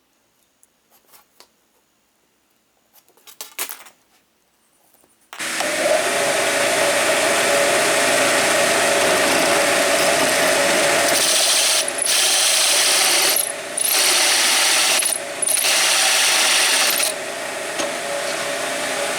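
A few light clicks and knocks, then an electric power tool starts suddenly about five seconds in and runs loud and steady with a constant motor whine. It drops out briefly three times and runs somewhat quieter near the end.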